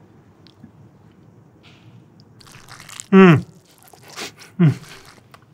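A man biting into and chewing crisp, browned steak, with two short moans falling in pitch about three seconds in and again near the end, the first the loudest.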